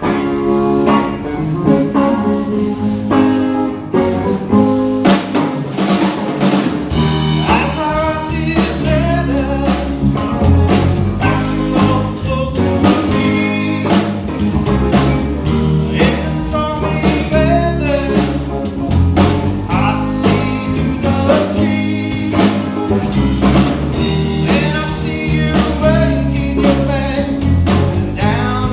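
Live blues trio playing the opening of a song: electric lead guitar, bass guitar and drum kit. The bass fills out the low end from about seven seconds in.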